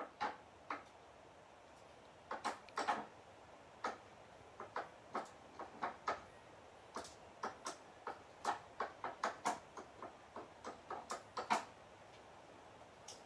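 A Chihuahua's claws clicking and tapping on hard surfaces as it paws at the tabletop: a long run of sharp clicks at irregular intervals, some in quick pairs.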